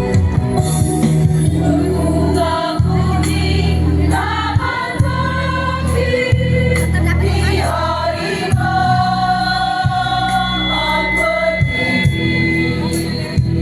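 Choir singing together over a steady low accompaniment.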